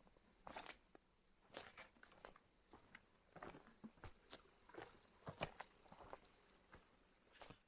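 Faint, irregular light clicks and short scrapes of bamboo being handled and worked by hand.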